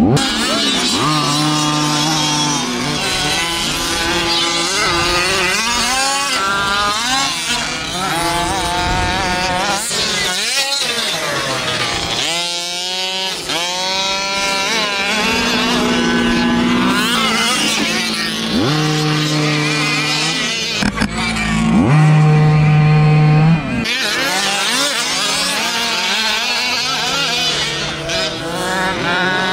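Small two-stroke gasoline engines of fifth-scale RC race trucks revving hard and easing off, the pitch climbing and holding at full throttle for a second or two, then dropping, over and over.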